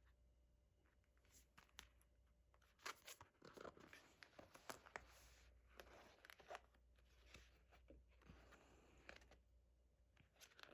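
Faint rustling, crinkling and light clicks of a K-pop album's cardboard and paper packaging being handled and opened, with several short swishes of paper or plastic sliding.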